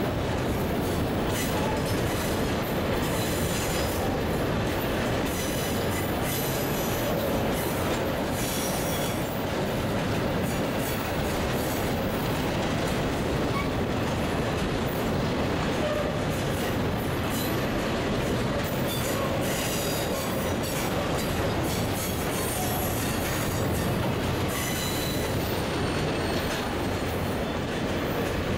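Covered hopper cars of a freight train rolling past close by: a steady rumble of steel wheels on rail, with scattered clicks and a faint wheel squeal at times.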